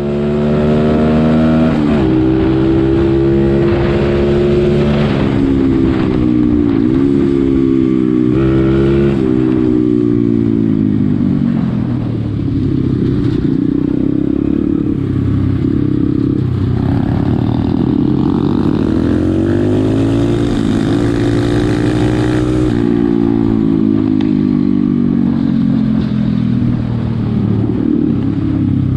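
Pit bike engine running hard, its pitch climbing and then dropping sharply again and again as the revs build and fall back. After a longer climb near the middle, the pitch drops and eases down steadily toward the end.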